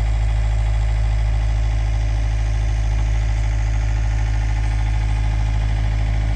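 Excavator engine running steadily at a low idle, with the throttle set to its lowest level.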